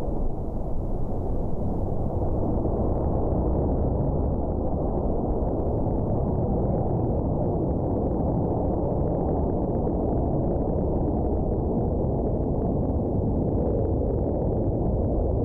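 Jet engine roar from a formation of Blue Angels F/A-18 Hornets, heard as a steady, deep rumble that neither rises nor falls.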